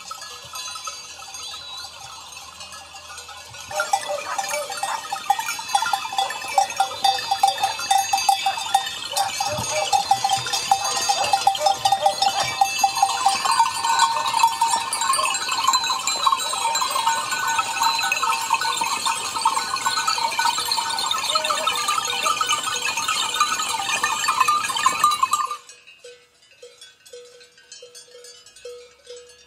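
A moving flock of sheep and goats, many neck bells clanking and jangling at once, with bleating among them. The sound sets in about four seconds in and cuts off abruptly a few seconds before the end, leaving only faint ticking.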